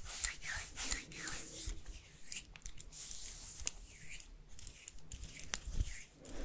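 Close-miked ASMR trigger sounds: uneven hissing rubbing strokes with crisp clicks in between.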